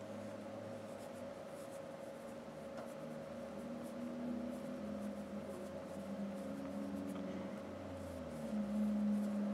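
Soft rubbing and rustling of a strip of cotton wick being twisted and rolled to a point between fingertips, over a steady faint hum.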